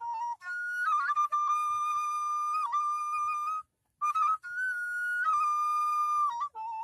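Background music: a solo flute melody of long held notes joined by short slides, with a brief break a little past halfway and a lower note near the end.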